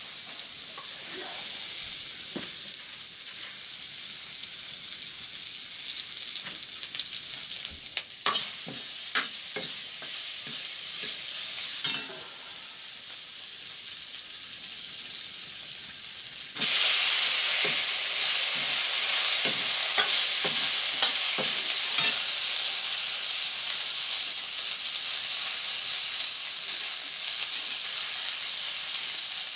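Food sizzling in a hot iron kadai over a wood fire, with occasional sharp clicks and knocks. About two-thirds of the way in the sizzling turns abruptly louder and higher as pale strips of vegetable fry in the pan.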